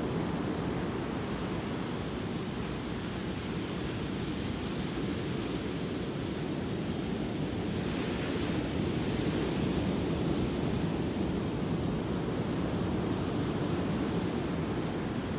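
Ocean surf breaking on a sand beach: a steady rush of waves, swelling louder about eight seconds in as a set breaks.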